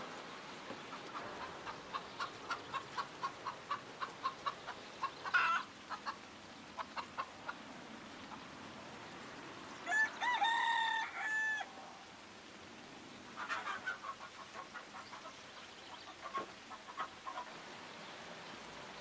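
Chickens: a hen clucking in a quick run of short calls, about three a second. About ten seconds in, a rooster crows once in a long pitched call, the loudest sound here. Another run of clucking follows.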